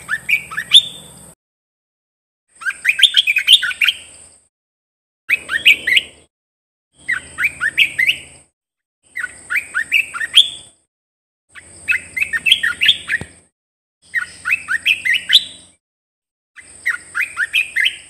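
Olive-winged bulbul singing: short bubbly phrases of quick rising whistled notes, each about a second and a half long, repeated about every two seconds.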